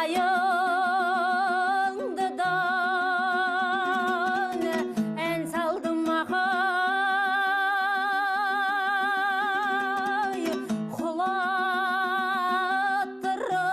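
Kazakh folk song: a singer holds long notes with a wide, even vibrato over a plucked string accompaniment, in three long phrases with short breaks between them.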